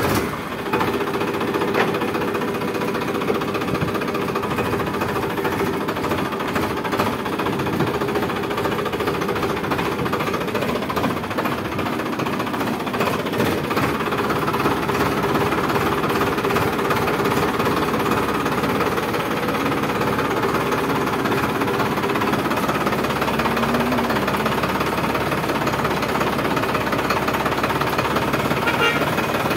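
Farmtrac tractor's diesel engine running steadily while the tractor is driven, heard from the driver's seat.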